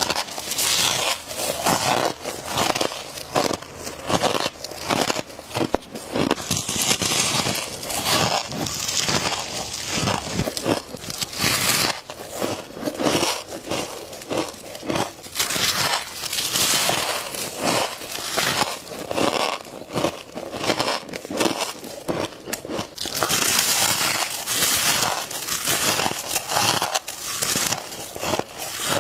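Close-miked biting and chewing of frosty, powdery ice: continuous crisp crunching and crackling as the frost is crushed between the teeth.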